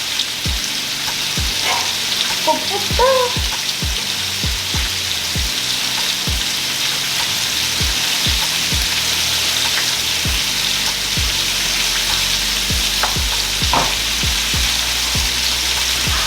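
Food sizzling steadily in a hot frying pan, with the odd stir.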